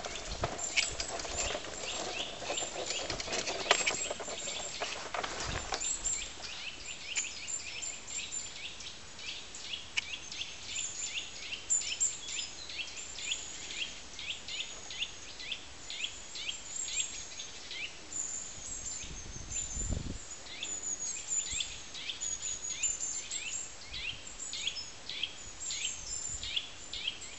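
Forest birds singing and calling: a continuous stream of short, high, quick notes from several birds. A lower noise sits under them for the first six seconds, and a single low thump comes at about twenty seconds.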